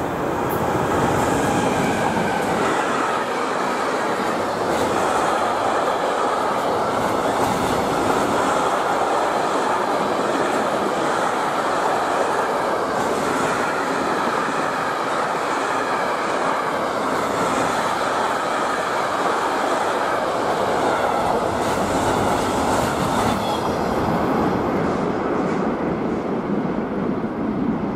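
Electric-hauled intermodal freight train passing on the near track: a steady, loud rolling and rattling of wagon wheels on the rails. It thins out in the last couple of seconds as the end of the train clears.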